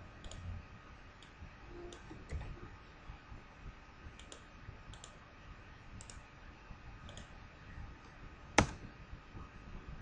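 Scattered clicks of a computer mouse and keyboard, several in quick pairs, with one much louder sharp click near the end.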